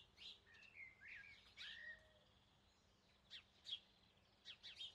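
Faint birdsong: short chirps and whistled calls in quick clusters, a lull about halfway, then more chirps near the end.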